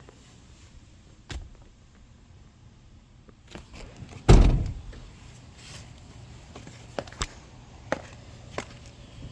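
A heavy thump about four seconds in, with a few light clicks and taps before and after it, from handling the parts of a car's cabin.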